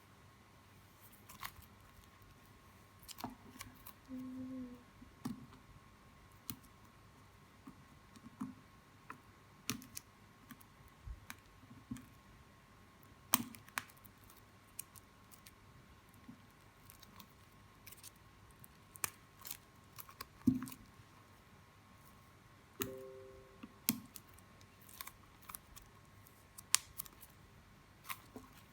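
Handling noise from a book and its packaging being opened: irregular small clicks, snaps and crinkles, a few seconds apart.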